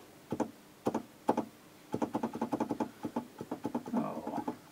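Clicks and clacks of a Korg Delta DL-50 synthesizer's keys and sliders being worked: a few single clicks, then a fast run of clicks about two seconds in. The synth section plays no note, because it is faulty.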